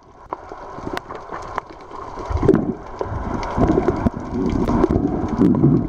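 Muffled underwater sound through a camera's waterproof housing: water churning and bubbling, with scattered sharp clicks. It grows louder about two seconds in.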